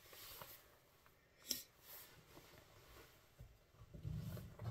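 Faint handling noises: a single light click about a second and a half in, a few softer ticks, and low rumbling handling noise near the end.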